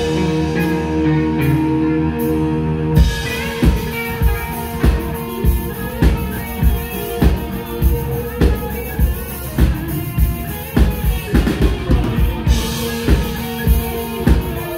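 Live rock band playing: electric guitar holding sustained notes, then about three seconds in the drums and the rest of the band come in with a steady driving beat.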